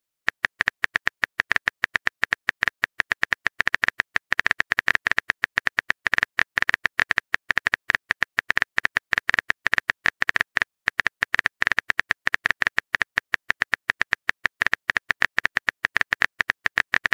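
Simulated phone keyboard key clicks as a text message is typed, in rapid irregular runs of sharp, evenly loud clicks with short pauses between them.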